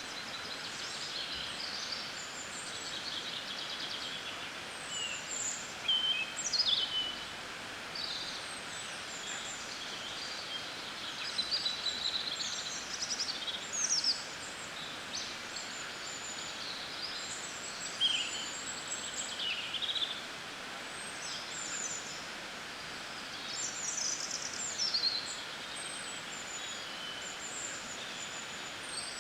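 A spring dawn chorus of several songbirds, many short chirps and quick trilled phrases overlapping throughout, over the steady rush of a river.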